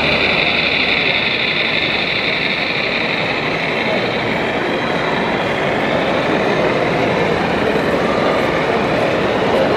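Model diesel locomotive and ore hopper wagons running past on the layout track, a steady mechanical running sound over the dense murmur of a crowded hall. A high whine is strongest at the start and fades within the first couple of seconds as the locomotive passes.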